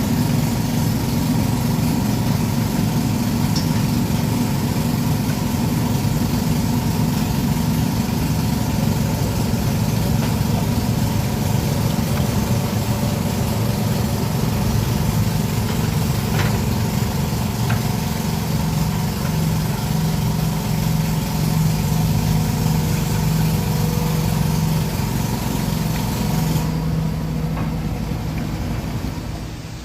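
Diesel engine of a Sumitomo SH210-5 hydraulic excavator running steadily at idle, fading out at the very end.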